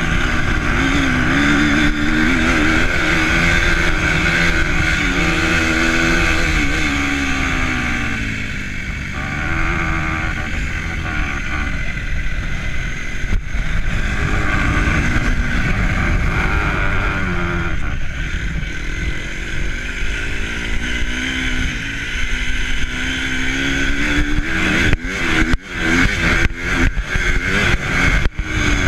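Engine of a moving vehicle, its pitch rising and falling as the speed changes, under heavy wind rumble on the microphone. Near the end the sound breaks up in a series of brief dropouts and cracks.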